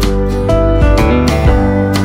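Background music led by strummed guitar chords over a steady bass, the chords changing about every half second.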